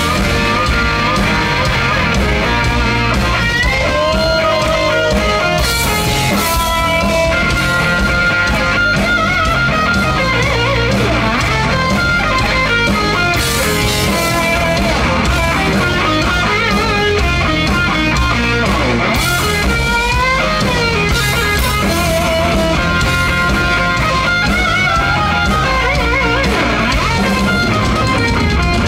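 Heavy metal band playing live: distorted electric guitars over bass and drum kit. A lead line bends up and down in pitch, with cymbal crashes now and then.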